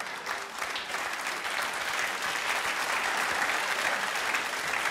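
Live audience applauding, building up after the first second and easing off near the end.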